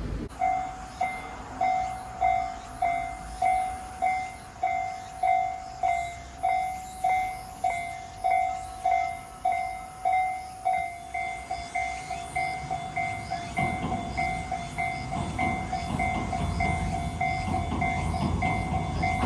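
Japanese level-crossing warning bell clanging in a steady repeating two-tone pattern, a little under two strikes a second, signalling an approaching train. From about halfway through, the rumble of a train passing the crossing rises and grows louder toward the end, with the bell still ringing under it.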